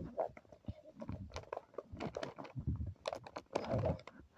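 Handling noise: irregular rustling, clicks and dull knocks as small toys and plastic packaging are moved about by hand on a bedspread, close to the microphone.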